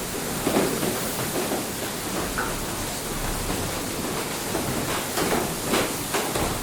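Water mill: water rushing steadily over the wheel, with irregular sloshing splashes every half second to a second.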